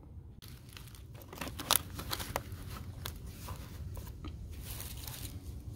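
Flexible aluminium foil duct crinkling and crackling in the hand as it is worked onto a diesel heater's metal outlet collar. The crackles are scattered and irregular, with one sharper crackle about a second and a half in.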